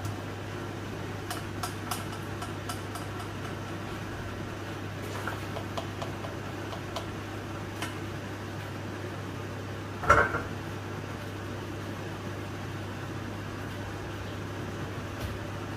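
Steady low mechanical hum of a running kitchen appliance, with light metal clinks of a spoon against a stainless steel cooking pot and one louder metal clank of the cookware about ten seconds in.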